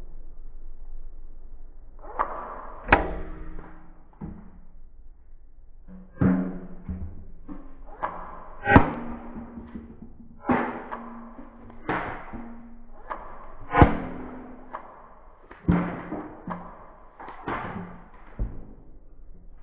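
A series of deep, ringing thumps, about one every one to two seconds, each struck sharply and dying away with a pitched ring.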